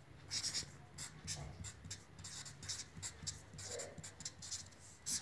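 Felt-tip marker writing on ruled notebook paper: a quick string of short, irregular scratches, one for each stroke of the letters.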